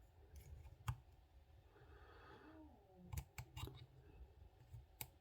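Faint, sparse clicks of a hook pick and tension wrench working the pins of a Viro chain-link padlock: one click about a second in, three quick ones around three seconds in, and another near the end.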